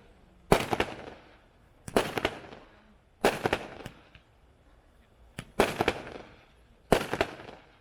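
World Class Peacock 200-gram consumer firework cake firing its shots, about five loud reports about a second and a half apart. Each report is a sharp bang followed by a quick run of crackling pops that fades away.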